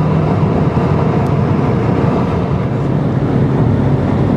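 Steady road and engine rumble inside a car driving at highway speed.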